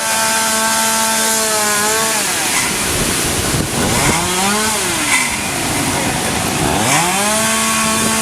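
Chainsaw running at high revs for about two seconds, then dropping back. It is revved briefly again around the middle and climbs back to full speed near the end.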